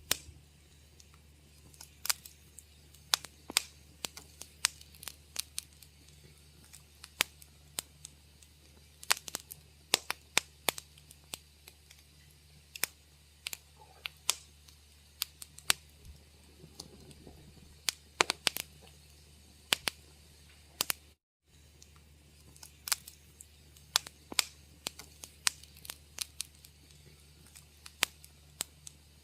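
Wood fire crackling in a fireplace: irregular sharp pops and snaps, several a second, over a faint steady low hum. The sound cuts out briefly once, about two-thirds of the way through.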